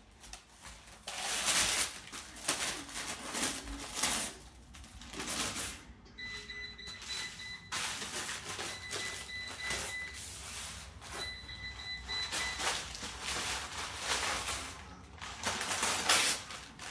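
A German Shepherd tearing into a food delivery package with its teeth and paws: irregular bursts of rustling, crinkling and ripping packaging.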